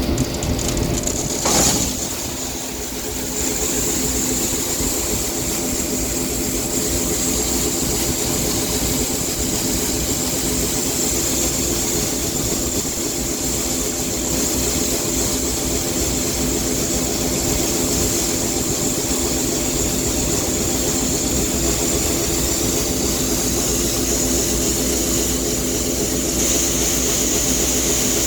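Farm machinery engine running steadily under a constant high whine, with one brief loud clunk about a second and a half in.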